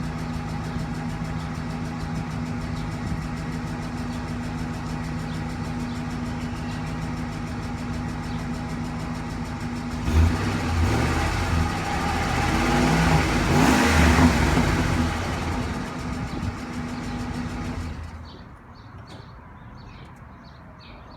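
Ford 5.4L 3-valve V8 idling steadily, then revved up about halfway through and let fall back to idle, then switched off near the end. This is the engine whose ticking the owner suspects comes from the lifters.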